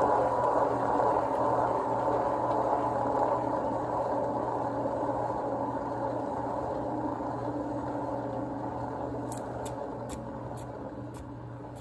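Whir of a turntable spinning a freshly poured acrylic canvas, with a steady low hum underneath, slowly fading as the spin winds down. A few faint ticks come near the end.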